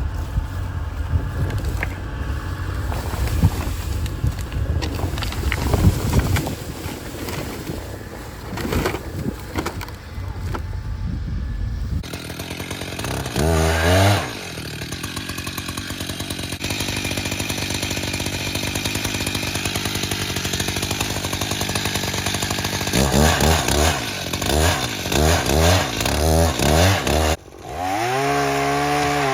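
Chainsaw revving up, running steadily, then blipped in a string of short revs and held at a high rev near the end. Before it starts, a rough, low rumbling noise fills the first twelve seconds or so.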